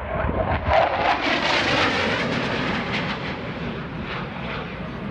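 A U.S. Air Force Thunderbirds F-16 fighter jet flying past with its smoke on. Its engine roar swells about a second in, then slowly fades as it moves away.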